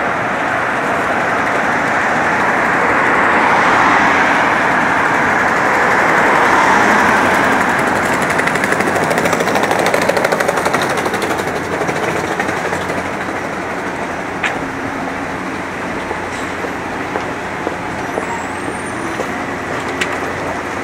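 Road traffic on a city street: motor vehicles passing, loudest in the first half, with a rapid pulsing motor sound around ten seconds in. The noise then settles to a lower steady street hum, with two sharp clicks near the end.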